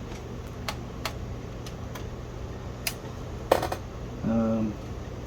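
Scattered light clicks and taps of the Commodore 128's plastic case and parts being handled during disassembly, with two sharper clicks about three and three and a half seconds in, over a steady low hum.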